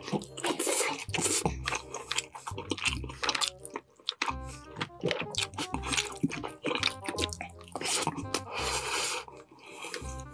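Close-miked eating sounds: a man chewing tender, sauced chicken drumsticks with wet mouth noises, over background music.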